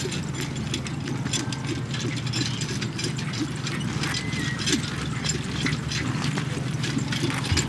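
A pair of ponies trotting on grass, pulling a four-wheeled carriage: hoofbeats with a continual rattling and clinking of the carriage and harness.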